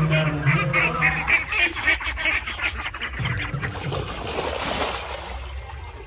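A flock of domestic ducks quacking rapidly all together as they hurry along, with a low hum under the first second. About four seconds in, splashing as the ducks drop into the pond, and the calling thins out.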